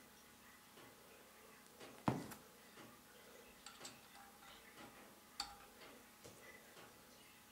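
Light clicks and taps from handling a small model Stirling engine while oiling its cylinder, with a sharp knock about two seconds in and another about five and a half seconds in, over faint scattered ticking.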